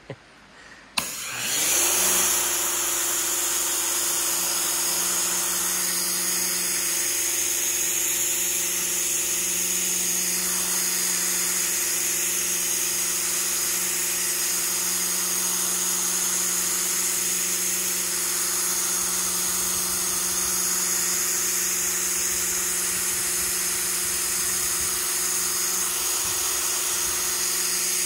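A pressure washer kicks in about a second in and then runs steadily: its motor and pump give a constant hum under the hiss of the water jet blasting weathered grime off the canoe's hull.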